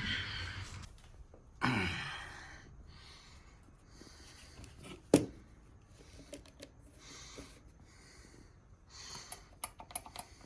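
Hand tools and metal parts being handled on a Briggs & Stratton overhead-valve mower engine during teardown: scattered scrapes and light clicks, with one sharp metallic click about five seconds in and a quick run of small clicks near the end.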